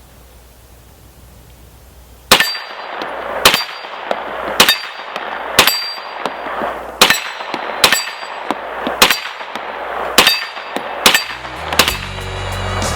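Kel-Tec Sub-2000 9mm carbine firing about ten shots at a steady pace of roughly one a second, each with a ringing tail, starting about two seconds in.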